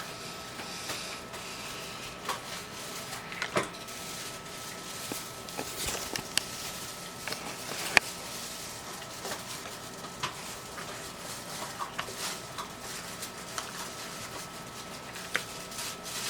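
Scattered light clicks and taps of cutlery and dishes during a meal, one sharper tap about eight seconds in, over a faint steady high-pitched tone.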